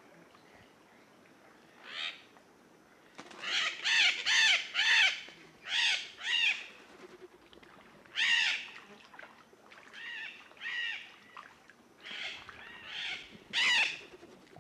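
Yellow-collared macaws giving harsh, screechy calls, each rising and falling in pitch: about a dozen, with a quick run of four or five about three to five seconds in, and the rest coming one or two at a time.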